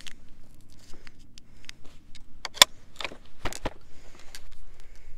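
Metallic clicks and clacks of a Dreyse needle rifle's bolt action being worked by hand: a few light ticks, then a sharp click about two and a half seconds in, followed by several more clacks close together.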